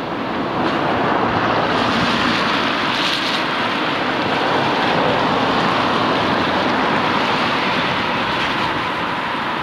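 Steady rushing noise of travelling along a wet road: wind on the microphone mixed with tyre hiss on wet asphalt.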